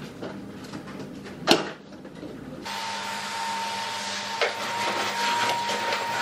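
Light kitchen clatter with one sharp knock, then from about two and a half seconds in a canister vacuum cleaner running steadily, a rushing noise with a thin steady whine.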